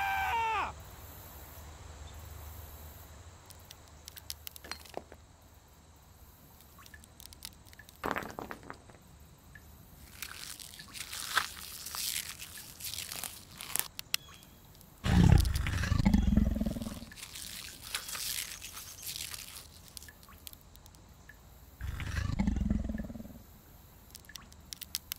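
Cartoon sound effects: a short falling cry in the first second, then faint ambience with scattered crunching clicks, and two deep rumbling growls about seven seconds apart, each lasting one to two seconds.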